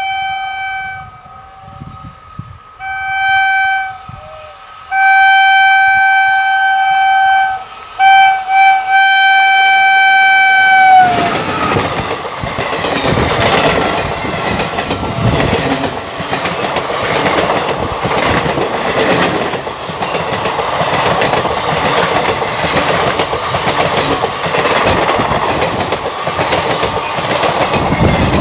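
A passenger train's locomotive horn sounds in about five blasts as the train approaches, and the last blast drops in pitch as the locomotive passes. Then the steady clatter and rumble of the ICF coaches' wheels running past at speed takes over.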